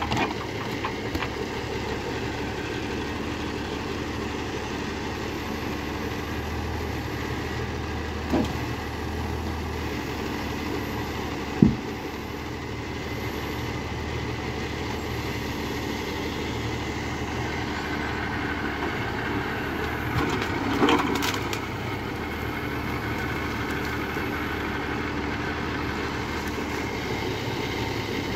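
Valtra 8350 tractor's diesel engine running steadily, powering a Palms 12D forestry trailer crane as it handles logs. Two knocks of wood in the first half, the second sharp and the loudest, and a brief crunching and cracking of wood and branches about two-thirds of the way through.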